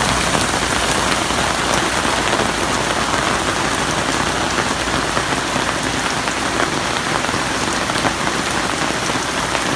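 Steady heavy rain falling and pattering on the ground, with scattered drop ticks.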